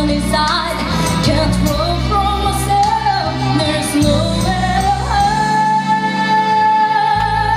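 Pop song with a singer over a steady backing track, ending on one long held note.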